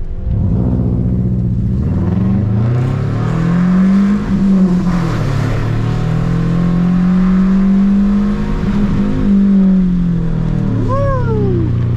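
Subaru Impreza 2.5 RS's flat-four engine under hard driving: the revs climb, drop about five seconds in, hold steady, then dip again near the end. A short falling squeal comes near the end.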